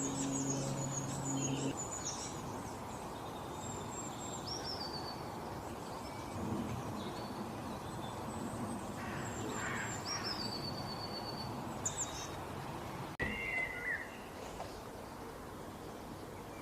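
Several birds chirping and calling in short, high, falling phrases over a steady outdoor background hiss. A low steady hum sounds in the first second or so, and about 13 seconds in the background cuts abruptly to a quieter level.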